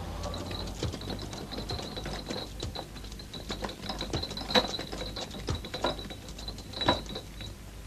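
Irregular light clicking and rattling, ratchet-like, from a street vendor's wheeled pushcart rolling along, with a faint steady high-pitched tone running under the clicks.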